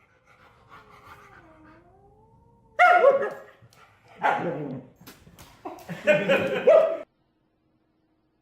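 A pet animal calling: a faint wavering whine, then three loud calls, the last about a second long. The sound cuts off abruptly about seven seconds in.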